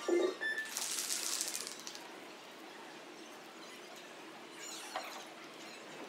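Background music cuts off at the start, followed about a second in by a brief high rattling noise, then quiet gymnasium room tone with a faint knock near the end.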